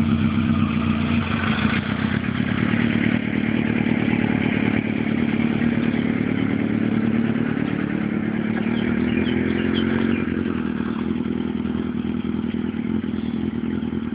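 Suzuki GSX-R600's inline-four engine running close by, its pitch rising a little and then dropping back about ten seconds in.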